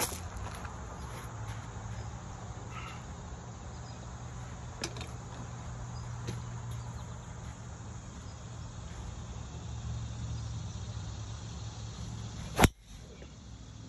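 A golf club striking a teed-up ball off a driving-range mat: one sharp crack near the end, over a steady low outdoor hum.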